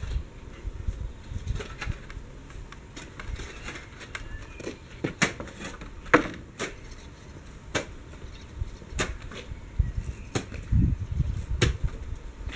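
Short spade digging into stony soil: irregular scrapes and clinks of the blade against earth and stones, with a few low thuds about ten seconds in.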